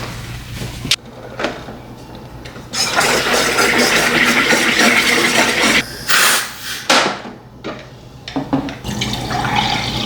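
Water running from a kitchen tap: a strong run for about three seconds, two short spurts, then a quieter steady flow near the end.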